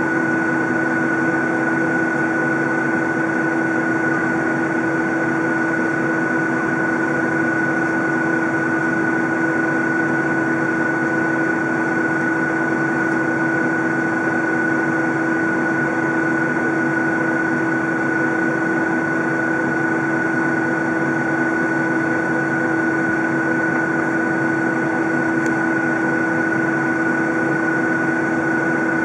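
Steady, unchanging jet aircraft engine drone: a constant low hum with a higher steady whine over a dense rushing noise.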